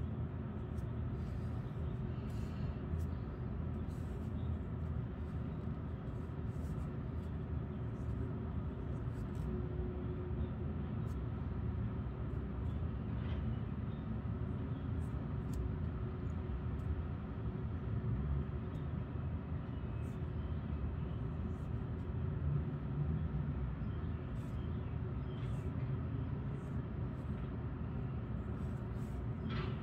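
Steady low background rumble, like distant traffic or room noise, with faint scattered clicks.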